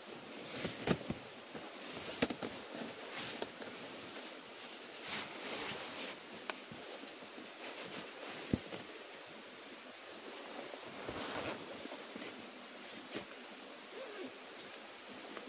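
Nylon tent and gear fabric rustling in irregular bursts as it is handled and folded, with a few sharp knocks, the clearest a little past halfway, over a steady background hiss.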